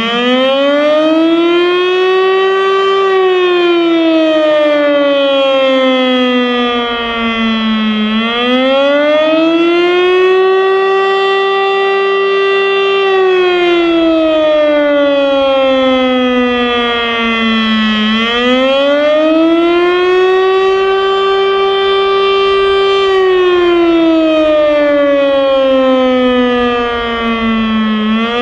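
Federal Signal STL-10 electromechanical outdoor warning siren sounding the attack signal, a slow wail. Its pitch rises over about three seconds, holds briefly, then falls over about five seconds, repeating about every ten seconds, nearly three times.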